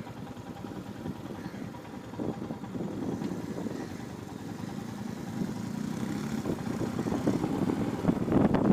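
Motorcycle engine running under way, getting louder toward the end.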